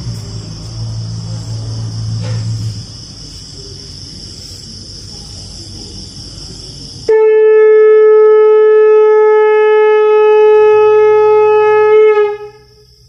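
Conch shell blown in one long, loud, steady note that starts suddenly about seven seconds in and dies away after about five seconds. Before it there is only a faint steady high hiss and low hum.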